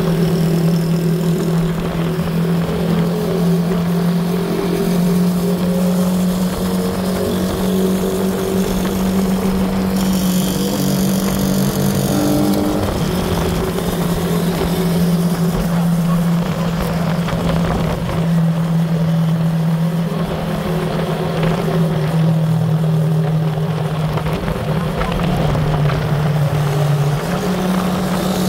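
Small motorcycle engine running at a steady cruising speed, its drone shifting slightly in pitch a few times, with wind rushing over the microphone.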